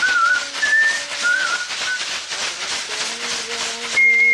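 A shaman whistling a healing song in short wavering phrases, then holding one long high note near the end, over a fast, even rustling shake.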